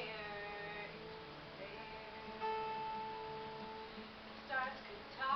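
Acoustic guitar being strummed in a song, with a woman's voice singing over it and holding one long note partway through.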